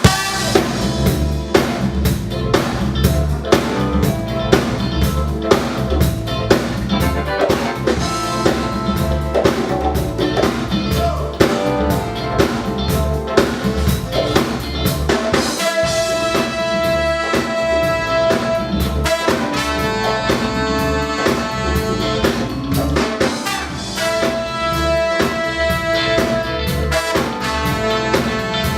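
Live funk band playing a groove at a sound check: a drum kit keeps a steady beat under bass and sustained melody notes, with the held notes coming in more strongly about halfway through and again near the end.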